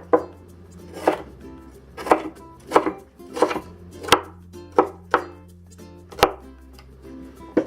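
Chef's knife chopping through yellow bell pepper on a cutting board, dicing it: about nine separate strokes at an uneven pace of roughly one or two a second.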